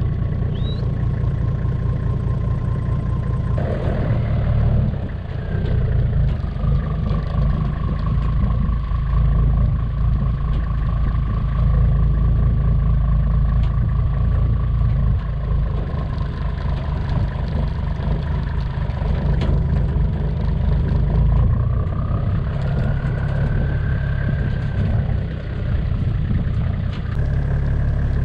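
A vehicle engine running under a heavy low rumble, with a steady whine whose pitch drifts down and then rises and falls again near the end.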